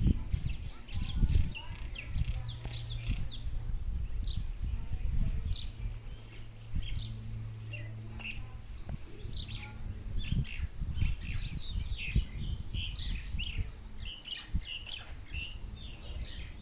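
Small birds chirping, many short high calls overlapping, growing busier in the second half. A low rumble runs underneath, with a steady low hum through roughly the first half.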